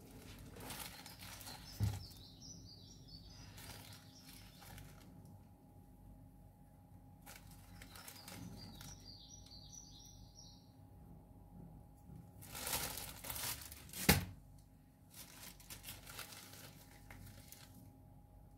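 Faint kitchen handling noise: a plastic bag rustling and a spoon tapping and scraping as ground spice is spooned into a plastic bowl of flour, with one sharper knock about three quarters of the way through.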